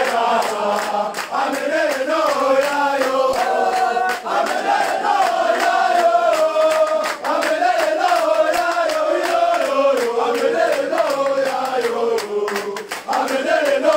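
A group of footballers singing and chanting together in a celebration song, voices held long and sliding in pitch, with sharp beats scattered through.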